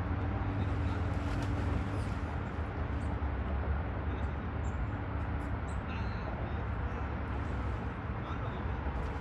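Steady low rumble with a faint hum over it that stops a little past halfway.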